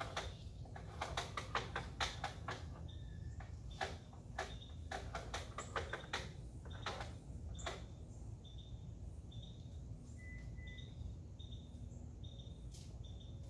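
Cardboard being cut for a template: a run of short, irregular scratchy clicks over the first eight seconds or so. A bird chirps in a steady repeated pattern over a low hum.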